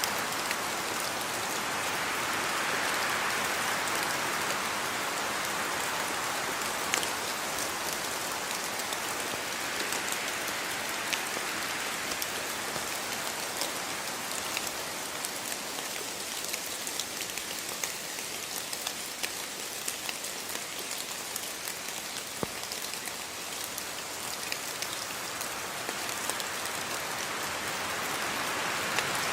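Steady rainfall: a continuous hiss that swells and eases slowly, with scattered sharper drop impacts ticking through it.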